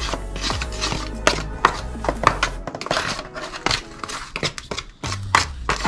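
Background music, with a fork clicking and scraping against a thin aluminium pan as it stirs seasoned flour.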